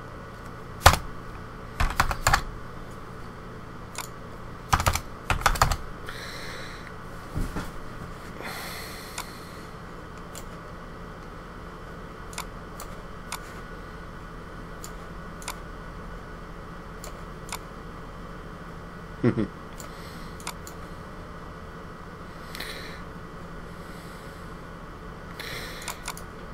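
Computer keyboard keystrokes and mouse clicks, in short scattered clusters separated by long pauses, over a faint steady room hum.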